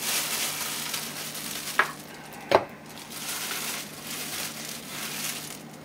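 Plastic bag of rye flour crinkling and rustling as it is handled and twisted shut, with two sharp knocks a little under two seconds and about two and a half seconds in.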